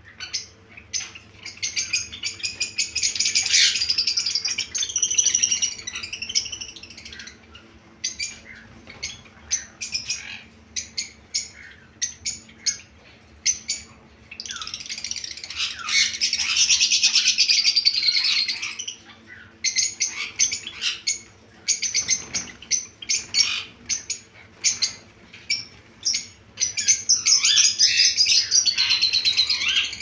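A cage of white, grey and silver Java sparrows chirping. Dense stretches of many overlapping high chirps come about a second in, in the middle and near the end, with single short chirps between them. A faint steady hum runs underneath.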